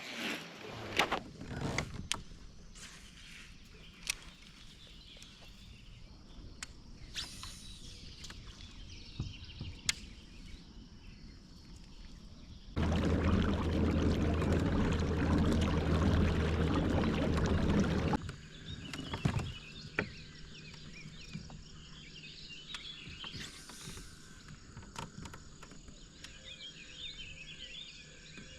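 Quiet outdoor ambience from a fishing kayak with scattered light knocks and clicks. A steady low motor-like hum starts abruptly about halfway through and cuts off about five seconds later. Birds chirp through the last part.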